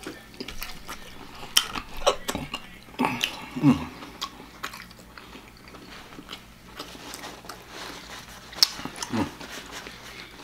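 Deep-fried chicken being bitten and chewed, the crispy breaded crust crunching in quick crackles that cluster in the first few seconds. Two short low hums falling in pitch come among the bites and again near the end.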